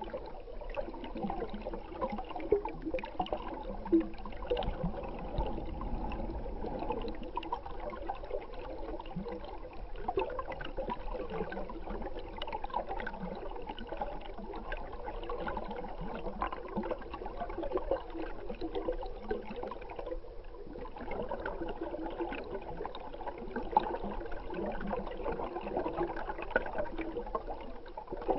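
Stream water heard from underwater: a muffled, steady wash with many small crackles and ticks, dipping briefly about two-thirds of the way through.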